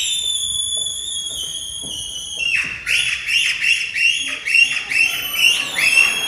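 Loud, shrill whistling. One long held note sags slightly in pitch for about two and a half seconds, then breaks into a run of short notes that each rise and fall, about two a second.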